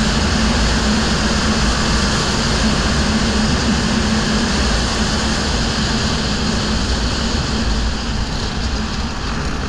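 Racing quad's engine running hard at speed, heard from the machine itself, under a steady rush of noise; the level drops a little near the end.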